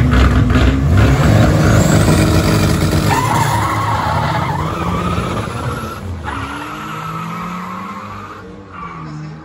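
Two cars launching side by side off a drag-strip start line: engines at high revs, with a wavering tyre squeal a few seconds in, then the sound fading as they accelerate away down the strip.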